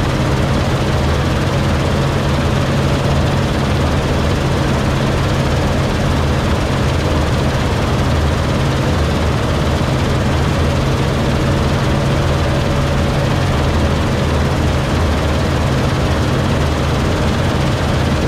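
Claas Lexion 7700 combine harvester running steadily while cutting oats: a constant low hum of engine and threshing machinery, heard from inside the cab.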